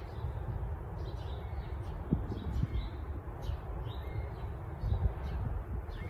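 Birds chirping and calling here and there, faint short high chirps scattered throughout, over a steady low rumble.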